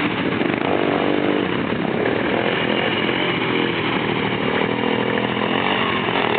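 Honda Foreman 450 ATV's single-cylinder engine revving up and down while riding through mud holes, its pitch rising and falling.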